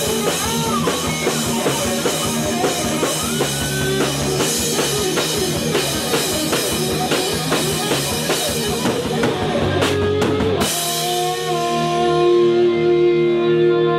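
Heavy metal band rehearsing: electric guitar playing a lead line over bass guitar and a drum kit in a driving rhythm. About ten and a half seconds in the drums stop and a final chord is left ringing.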